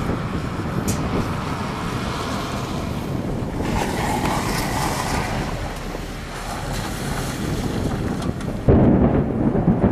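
Wind rushing and buffeting the microphone in a steady noisy blow. Near the end, a sudden, louder low rumble of thunder sets in.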